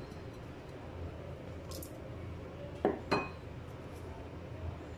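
Two light clinks on a stainless steel pot, a fraction of a second apart, about three seconds in, as garlic cloves are dropped in among the raw chicken and whole spices. A faint low hum runs underneath.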